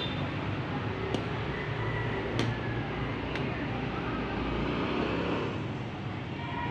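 Steady background road-traffic noise with a low hum, broken by three short sharp clicks about one, two and a half, and three and a half seconds in.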